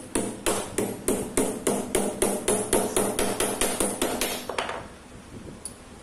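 Hammer blows on a flat steel strip against a steel anvil block, a steady run of ringing metal strikes at about three to four a second, stopping near the end.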